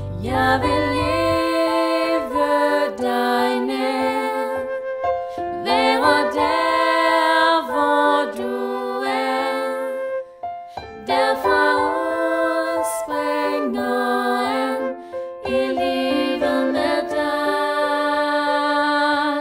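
Female voices singing a slow Danish worship song in sustained phrases, pausing briefly between lines. The bass drops out about a second and a half in, leaving the voices nearly bare.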